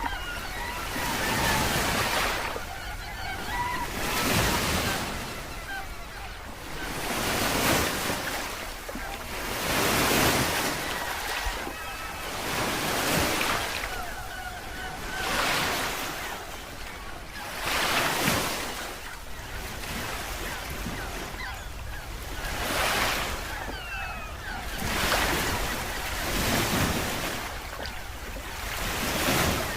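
Water surging in regular wave-like swells, one about every two and a half seconds, with a few faint short chirps between them.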